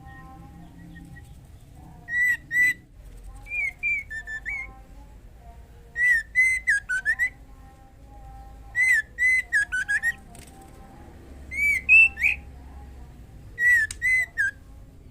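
Female white-rumped shama whistling short phrases of clear, gliding notes in about six bouts with gaps between them. This is the call a female in breeding condition uses to summon a male.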